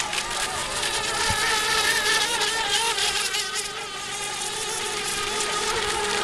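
Several electric radio-controlled racing boats whining at speed. The motors' high, buzzing pitches waver up and down as the boats run and turn.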